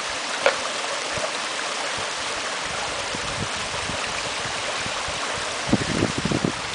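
Steady rush of a shallow creek and a small waterfall, with a single sharp click about half a second in. Near the end, uneven low bumps buffet the microphone.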